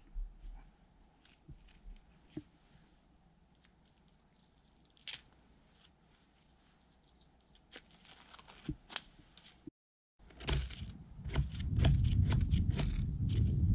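A few faint scattered clicks and crackles, then, after about ten seconds, a much louder run of fast, continuous scraping: a knife blade scraping at a small piece of dry tinder.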